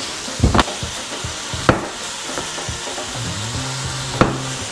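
Diced bacon sizzling steadily as it renders in a pan, with three sharp knocks.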